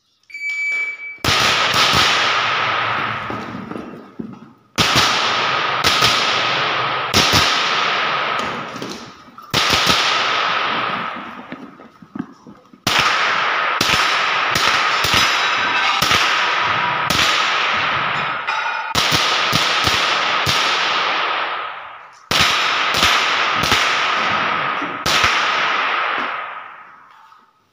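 A shot-timer beep, then a long string of .22 LR rifle shots in quick clusters with short pauses as the shooter moves between positions. Each shot echoes with a long ringing decay in the indoor range.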